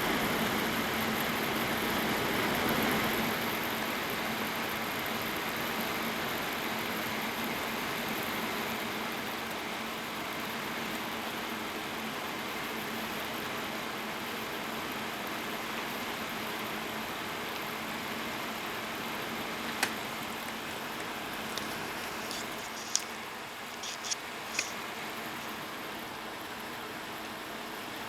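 Desktop PC running with fan noise and a high-pitched whistle from the Asus P5K motherboard's voltage-regulator chokes, which whistle as the Xeon X5450 is put under load. The whistle and overall noise are strongest early on and ease off gradually; a few short clicks come near the end.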